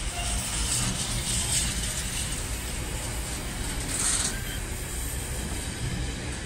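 Container freight train's wagons rolling past close by: a steady rumble of wheels on rail, with short bursts of high hiss about a second in and again around four seconds.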